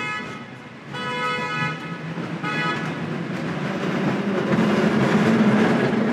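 A vehicle horn honks three short times, the last one fainter, then the rumble of a San Francisco cable car rolling on its track grows steadily louder over the last few seconds.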